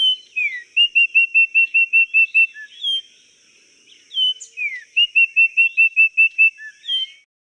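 Oriole singing: clear whistled notes, with two runs of about nine quick, evenly repeated notes, one near the start and one past the middle, over a steady high-pitched hiss.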